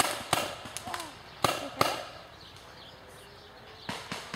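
Paintball markers firing: sharp pops, mostly in pairs about a third of a second apart, with a few fainter shots near the end.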